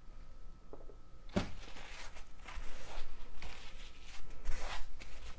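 Paper towel rustling and rubbing against small plastic lip balm tubes as spilled balm is wiped from their edges, with a couple of light knocks in the first second and a half.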